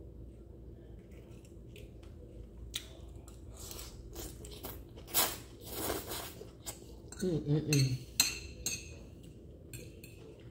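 Close-up eating sounds: a metal fork clicking and scraping on a ceramic plate, and spaghetti being taken into the mouth and chewed, in a run of short clicks and wet mouth noises.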